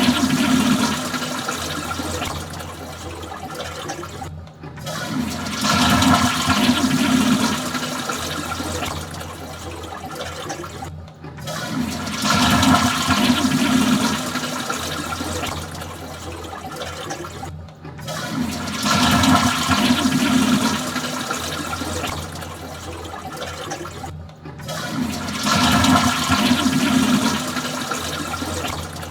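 Toilet flushing, repeated about every six and a half seconds: each flush starts with a loud rush of water that eases off, then breaks off suddenly before the next one begins.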